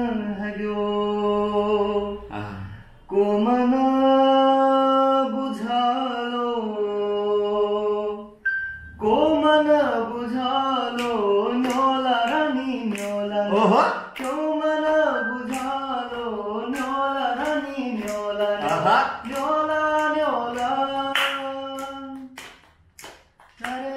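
A man singing a slow Kumaoni folk song unaccompanied. He holds long notes, then sings wavering, ornamented phrases. Near the end come a few hand claps.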